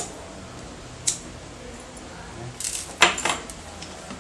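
Small metal gear clinking and clacking as a survival kit pouch is handled: a sharp click at the start, another about a second in, then a quick run of clinks with a brief metallic ring about three seconds in.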